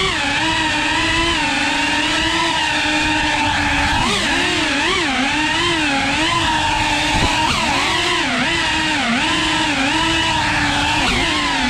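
FPV racing quadcopter's motors and propellers whining, the pitch swooping up and down with constant throttle changes as it weaves through tight gaps.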